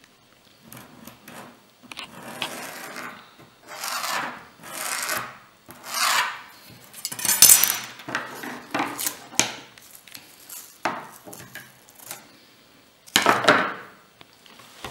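Hand sanding with abrasive paper in a series of uneven scraping strokes, each under a second, roughening a surface. The loudest strokes come about halfway through and again near the end.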